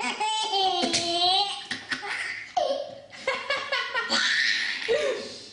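A baby laughing hard in high-pitched squeals and giggles, set off by someone's sneezing.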